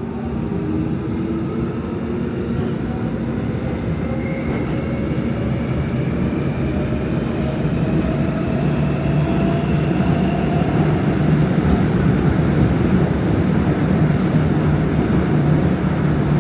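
An old Seoul Subway Line 3 train heard from inside a car as it picks up speed. The traction motor whine rises slowly in pitch over a rumbling running noise that grows louder.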